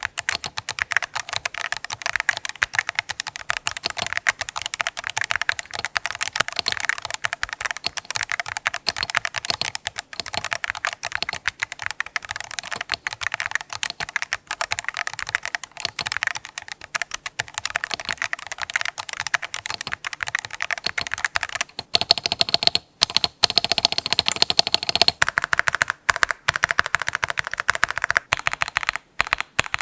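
Fast, continuous typing on an Akko MOD007 v3 HE Hall-effect mechanical keyboard with its stock Cream Yellow magnetic switches: a dense stream of key clacks with a few brief pauses. The sound is, in the reviewer's words, not very full.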